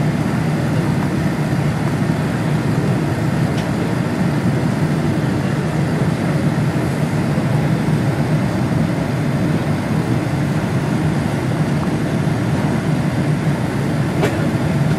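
Steady low rumble and hiss inside the cabin of a Boeing 787-9 as it taxis with its engines at idle, with a couple of faint clicks.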